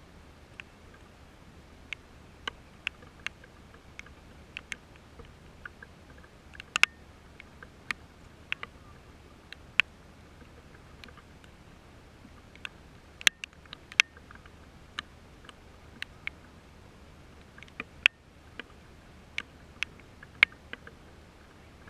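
Irregular sharp ticks of raindrops dripping onto a hard surface close to the microphone, about two a second and uneven in loudness, over a faint steady hiss.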